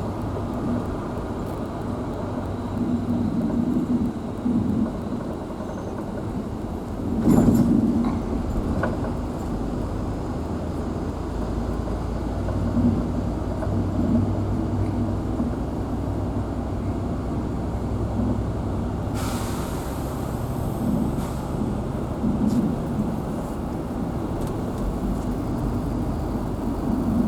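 Vehicle engine running with a steady low hum and road rumble, heard from inside the cabin. A knock about seven seconds in is the loudest moment, and a brief hiss comes about nineteen seconds in.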